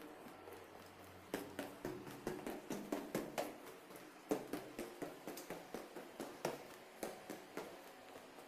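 Footsteps going quickly down a flight of stairs, a quick even run of about three steps a second that starts about a second in.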